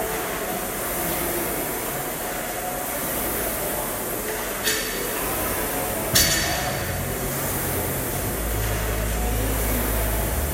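Steady workout noise in a gym, with two sharp metallic clanks about a second and a half apart, the second the louder; a low hum builds after the second clank.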